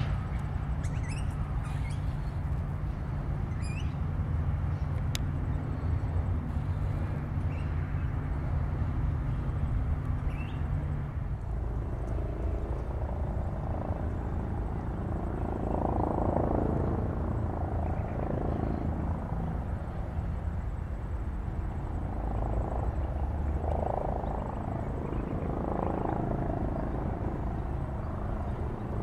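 Melbourne trams on the line: a steady low hum as one tram runs past and away, then a broader rumble swelling as another tram approaches near the end. A few short bird chirps come in the first seconds.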